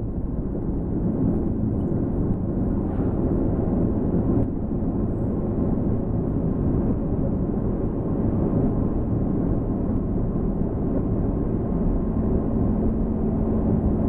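Steady low rumble inside a moving car's cabin: tyre and road noise on a snowy, icy highway, with wind.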